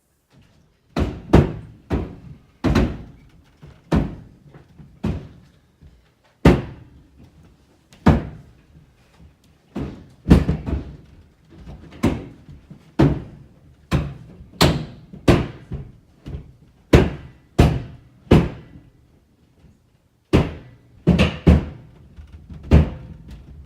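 Irregular heavy thuds and knocks from roofers working on the roof overhead, about one or two a second, with a short pause near the end.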